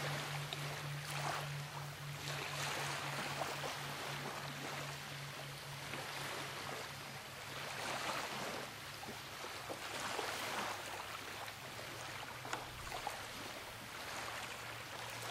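Waves washing on the shore, swelling and fading every second or two, over a steady low hum.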